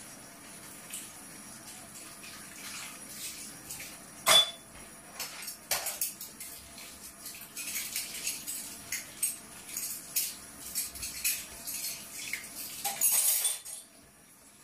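Dishes and utensils clinking and knocking at a kitchen counter and sink: a string of short clatters, one sharp knock about four seconds in, a quicker run of clinks later on, and a brief rush of noise near the end.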